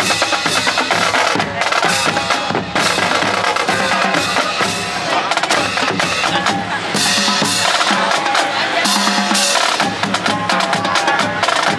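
Marching band drumline playing: snare drums, multi-drum tenors and bass drums in a fast, busy rhythm, with sharp stick clicks.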